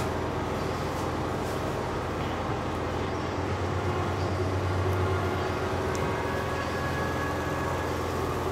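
Steady low hum of background room noise, level throughout.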